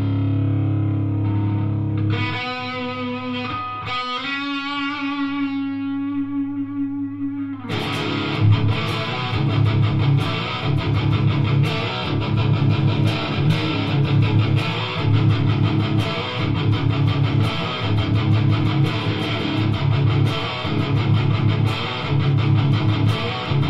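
ESP LTD EC-1000 electric guitar played through an overdriven amp. A held chord rings out, then a short single-note phrase starts about two seconds in. From about eight seconds in comes a heavy, fast riff of rapidly repeated low chords.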